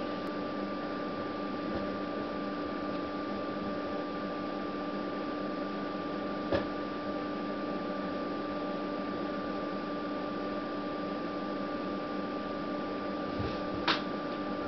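Steady electrical hum and hiss of running bench test equipment, two constant tones over an even hiss, with two short clicks, one about six and a half seconds in and one near the end.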